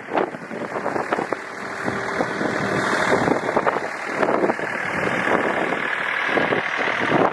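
John Deere 2032R compact tractor's three-cylinder diesel engine running, with a steady high whine over it from about two seconds in.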